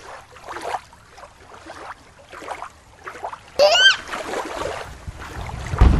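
Water sloshing and splashing in short uneven bursts. About three and a half seconds in there is a brief high-pitched cry, and near the end wind buffets the microphone with a low rumble.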